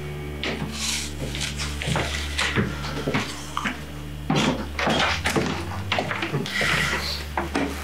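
Irregular footsteps and rustling as a person walks up across a small room, with scattered light knocks, over a steady low electrical hum.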